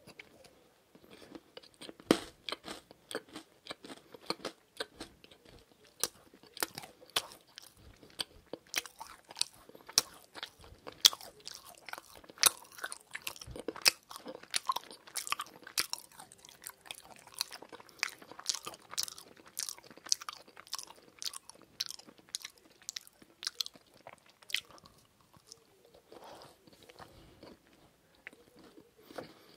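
A person chewing a macaron close to the microphone: the crisp shells crunch and crackle in many quick, sharp bites and chews, thinning out near the end.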